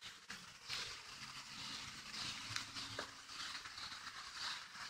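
Steady hiss of rain falling on the trees and yard as a shower moves in, with a faint low drone underneath in the first few seconds.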